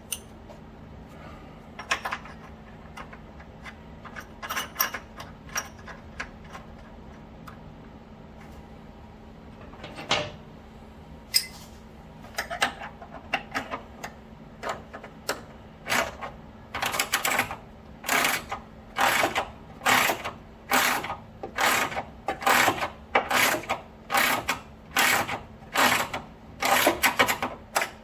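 A hand ratchet clicking in repeated strokes as it turns the screw of a puller pressing a polyurethane bushing home. After a few scattered clicks and knocks, the strokes settle into a steady rhythm of about one and a half a second, growing louder toward the end.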